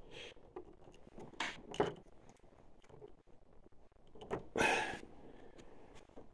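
Multimeter test leads and an alligator clip being handled on a workbench: a few light clicks and taps, with a short louder rustle about four and a half seconds in.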